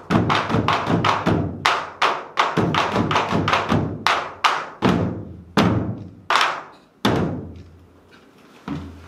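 Korean buk barrel drums struck by dancers in a drum dance: a run of sharp, ringing beats at about two a second. The beats stop about seven seconds in, leaving a short pause.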